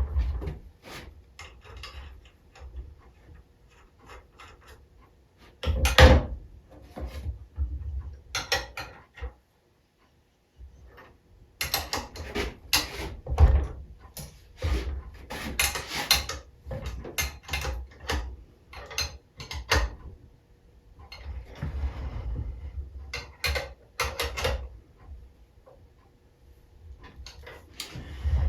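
Scattered clicks, knocks and rubbing of metal engine parts and tools being handled while a four-cylinder aluminum compressed-air engine is assembled, with a short near-silent gap about ten seconds in.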